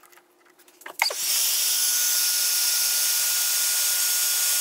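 Electric heat gun switched on about a second in and running steadily, its fan blowing with a loud even rush and a faint steady whine, shrinking heat-shrink tubing over a chewed wire. A few light clicks of the wire being handled come before it starts.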